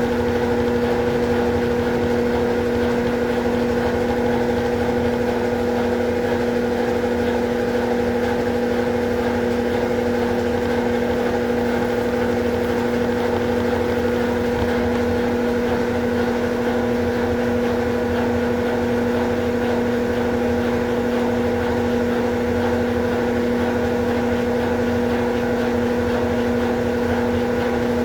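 Consul Facilite 11 kg (CWG11) top-loading washing machine running in its rinse cycle: a steady mechanical hum with a constant low drone.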